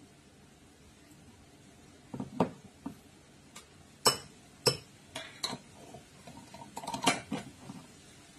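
Metal spoon clinking and scraping against a ceramic bowl and a glass sauce jar while sauce is spooned onto raw pork and stirred in. About ten irregular sharp clinks, starting about two seconds in, a few of them ringing briefly.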